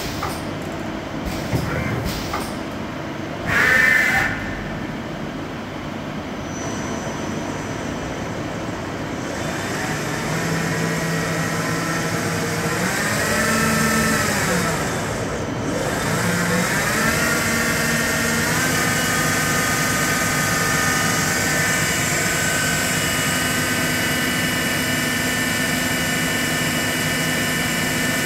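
Johnford TC-35-CS CNC lathe running: the spindle drive whines up and back down in pitch, then spins up again and holds a steady whine through the second half. Earlier there is steady machine hum with a few clicks and a loud sound lasting under a second about four seconds in.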